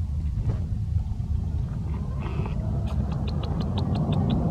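Steady low rumble. In the second half, a quick run of faint, short high chirps or ticks comes about six a second.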